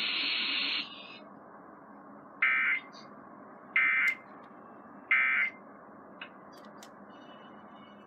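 Emergency Alert System SAME digital data bursts played through a TV speaker: a longer buzzy burst cuts off under a second in, then three short, equally spaced screechy bursts about 1.3 s apart, the end-of-message signal that closes a Required Weekly Test.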